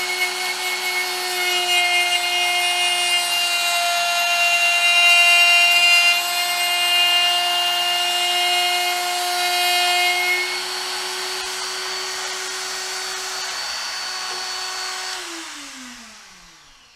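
Quarter-inch Hercules electric die grinder, mounted as a lathe tool post grinder, running at a steady high whine as its wheel grinds the point of a punch, holding speed without bogging down. The upper part of the sound drops away about ten seconds in. Near the end the motor is switched off and its pitch falls as it spins down.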